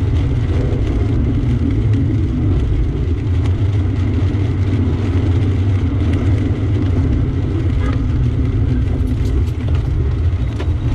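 Steady low rumble of a car driving at highway speed, heard from inside the cabin, with tyres and rain on a wet road.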